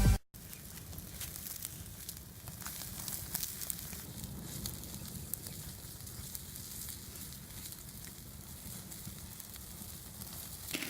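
Open cooking fire crackling, with scattered sharp pops over a low steady rumble.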